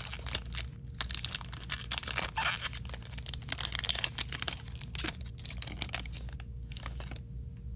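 A trading-card pack wrapper being torn open and crinkled by hand, a dense run of crackling that dies away about seven seconds in.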